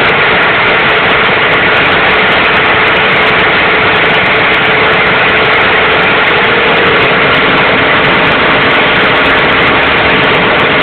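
An electric machine in a metal cabinet with a tank and hoses, running steadily with a loud, even noise and a steady hum beneath.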